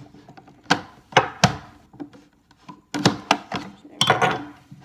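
Sharp clicks and knocks of a tool prying at the back cover of a fire alarm annunciator to pop it off, in two clusters: around a second in, then from about three seconds in.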